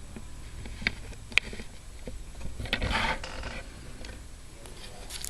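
Small hard parts being handled at close range: two sharp clicks about a second in, then a brief scrape or rattle about three seconds in, and a few faint ticks near the end.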